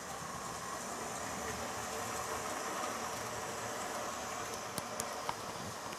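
Small electric motor of a model train running on the layout's track: a steady whirring hiss, with three light clicks about five seconds in.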